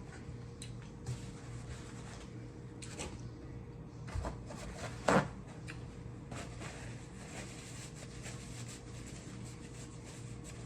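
Mukbang eating sounds from a seafood boil: scattered clicks, taps and mouth noises of food being handled and chewed, with one louder sharp sound about five seconds in, over a steady low room hum.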